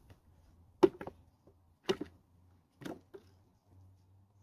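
Small potatoes dropped one at a time into an empty plastic flower pot, each landing as a sharp knock, four times about a second apart.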